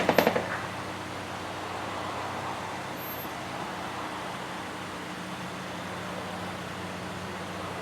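A vehicle engine idling steadily, a low hum under a wash of outdoor noise.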